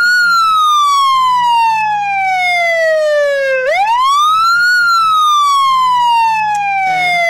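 Police car siren wailing: its pitch falls slowly for about three and a half seconds, rises quickly, then falls slowly again, over a faint steady low hum.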